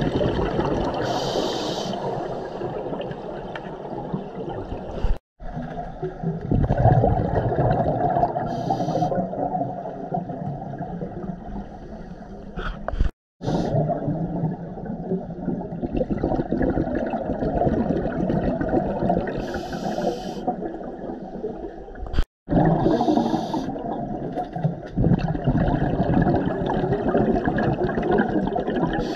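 Scuba diver's breathing heard underwater through a camera housing: the bubbles of exhalation burble and gurgle at length, and a short higher hiss comes now and then. The sound cuts out completely for a moment three times.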